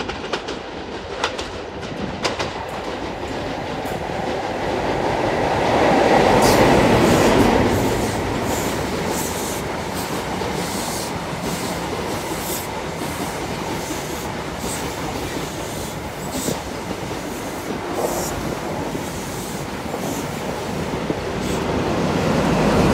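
High Speed Train of Class 43 power cars and coaches passing close by: the leading power car's diesel engine swells loudest about six to eight seconds in, then the wheels click steadily over the rail joints as the coaches go by, and the sound swells again near the end as the rear power car passes.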